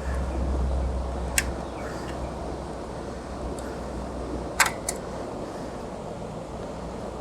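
A few sharp clicks, about a second in and then twice close together later, as the push-pin fasteners of the old stock CPU cooler are worked loose from the motherboard. Underneath is a steady low rumble.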